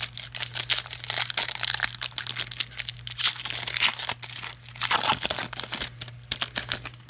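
Foil wrapper of a trading card pack being torn open and crinkled in the hands, a dense crackling with louder bursts around three and five seconds in.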